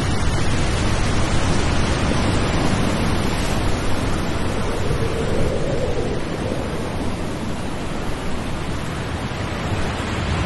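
Steady rushing roar of waterfalls.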